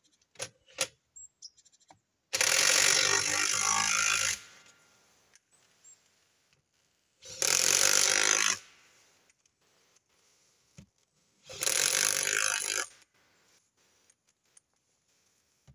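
Impact wrench hammering on a forwarder's wheel nuts in three loud bursts, the first about two seconds long and the other two shorter, with a few light clicks before and between them.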